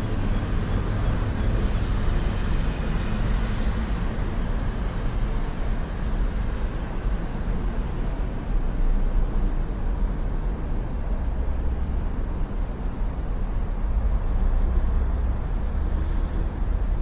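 Steady low rumble of street traffic. A high, even hiss runs over the first two seconds and cuts off suddenly.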